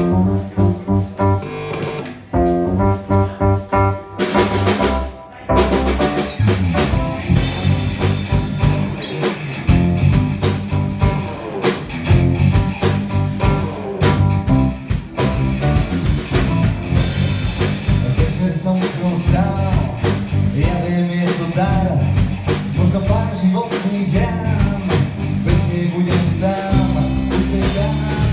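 Live rock band playing with electric and acoustic guitars, bass guitar, keyboards and a drum kit. It starts with short, stop-start chords and settles into a steady full-band groove about five seconds in.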